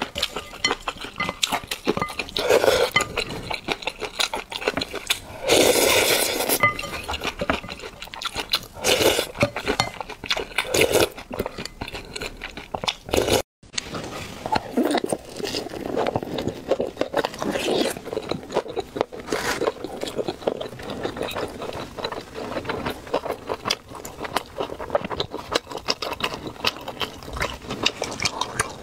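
Close-miked eating sounds: slurping spicy noodle soup, with chopsticks and a wooden spoon clinking and scraping against a ceramic bowl. About halfway through the sound cuts briefly, then comes wet biting and chewing of soft, chewy dumplings.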